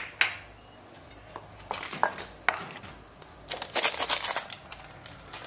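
Metal spoon stirring dry flour in a glass bowl: gritty scraping and a few clinks against the glass, with a flurry of quick scrapes about three and a half seconds in.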